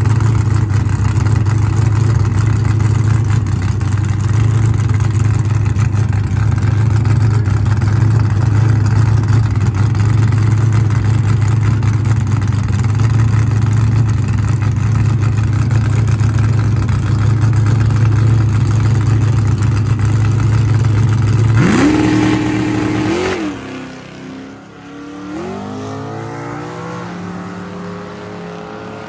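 Foxbody Mustang drag car's small-block V8 running loud and steady on the starting line, then revving up and launching about 22 seconds in. As it pulls away down the track the pitch climbs, drops at gear changes, and the sound fades.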